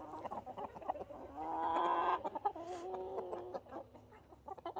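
Chickens clucking, with one bird giving a long, drawn-out call in two parts from about a second and a half in until past three and a half seconds.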